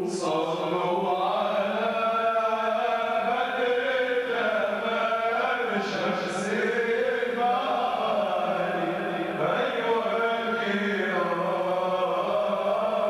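A group of voices chanting together in unison: a sustained, melodic Arabic devotional chant that goes on without a break, with a few hissed consonants standing out.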